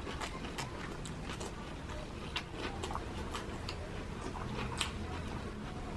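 Close-up chewing of crispy pork sisig: irregular crunches and wet mouth clicks, a few a second, over a steady low background hum.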